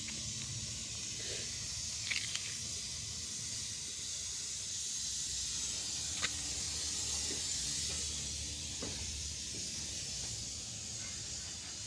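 Gas brazing torch burning with a steady hissing flame while copper refrigerant pipe is brazed, with a few faint metallic clicks.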